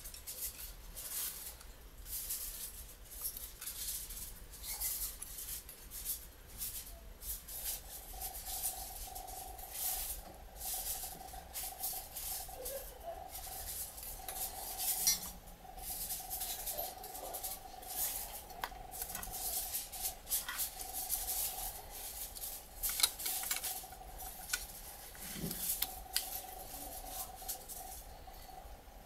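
Scattered small plastic and metal clicks and taps from handling the partly disassembled body of a Canon EOS 60D camera and a small screwdriver. A faint steady tone of unknown source comes in about a quarter of the way through.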